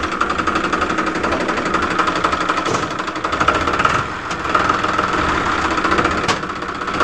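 Tractor engine running with a fast, steady knocking rattle, an engine sound that comes in abruptly out of silence.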